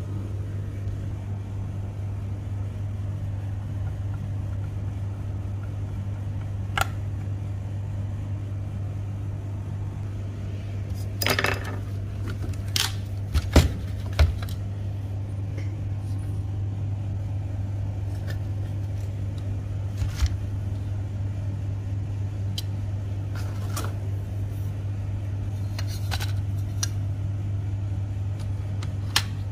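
Scattered clicks and knocks of the hard plastic housing and metal parts of a Toshiba e-Studio printer fuser unit being handled, over a steady low hum.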